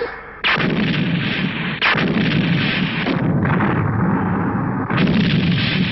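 Cartoon explosion sound effect: a loud blast about half a second in, with rumbling that is renewed by fresh blasts near two seconds and again near five seconds.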